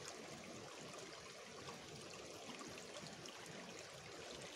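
Shallow stream of clear water flowing over pebbles and stones: a steady, faint rush of running water.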